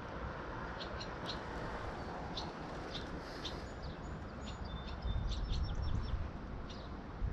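Small birds chirping in short, scattered calls over a steady outdoor hiss, with a low rumble on the microphone from about five seconds in.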